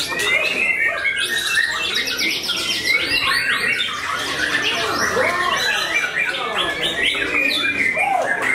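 White-rumped shama (murai batu) singing a long, varied song of whistled phrases, chattering notes and quick trills, with hardly a break.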